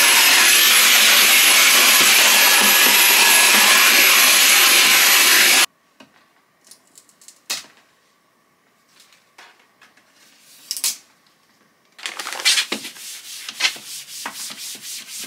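A vacuum cleaner running loud and steady with a high whine, cut off abruptly about five and a half seconds in. A few faint clicks and knocks follow. From about twelve seconds in there is a run of rubbing, with small hard objects clicking and rattling as they are handled.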